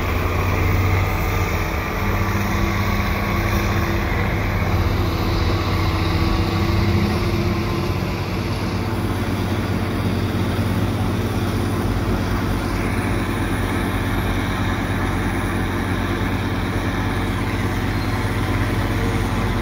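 Heavy diesel engines of a large self-propelled snowblower and the dump trucks beside it running hard with a steady low drone, while the snowblower's rotor throws snow into a truck's box. Some higher engine tones shift during the first several seconds and then fade as a truck moves off.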